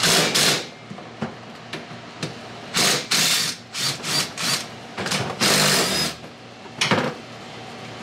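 Power tool run in about seven short bursts, backing out the bolts that hold the Can-Am Maverick X3 drive shaft's aftermarket carrier bearing. One burst comes at the start, then the rest follow in a stop-start cluster a few seconds later.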